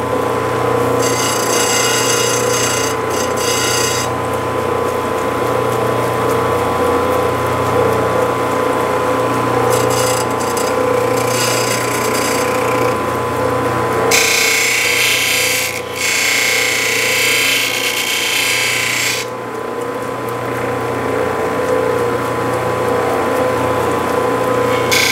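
Lapidary grinding machine running with a steady motor hum while a black opal is pressed against its spinning grinding wheel, adding a grinding noise in spells: about one to four seconds in, again around ten to thirteen seconds, and loudest from about fourteen to nineteen seconds in.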